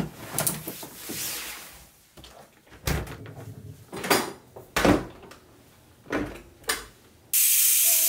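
Handling knocks and clicks as a Cuckoo rice cooker's lid is opened and its metal inner pot is handled, each a short separate knock. Near the end, dry rice grains start pouring into the inner pot with a sudden, loud, steady hiss.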